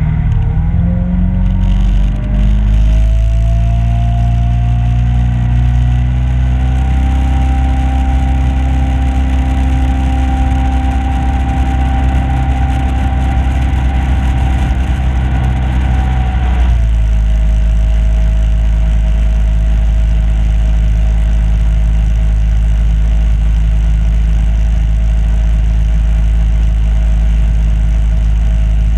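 Boat motor speeding up, its pitch rising over the first several seconds, then running at a steady cruising speed. About two-thirds of the way in it is throttled back and drops abruptly to a lower, steady pitch.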